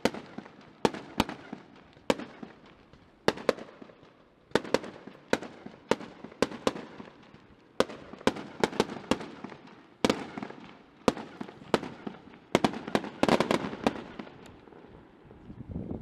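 Fireworks display: aerial shells bursting in a string of sharp bangs at irregular intervals, each with an echoing tail, bunching into a quick run of bangs about three-quarters of the way through.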